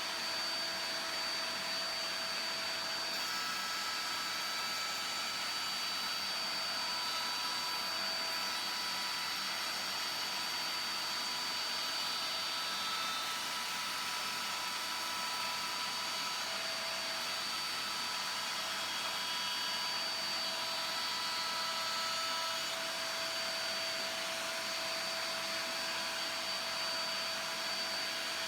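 Router in a router table running steadily with a high whine, its straight flute bit jointing the edges of planks fed past it.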